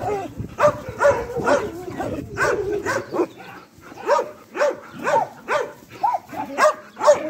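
Several dogs barking over and over, about two barks a second, with a short lull midway.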